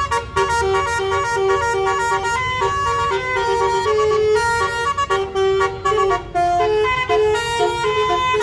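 Multi-tone 'telolet' bus horn playing a fast tune, one short held note after another with brief breaks between them.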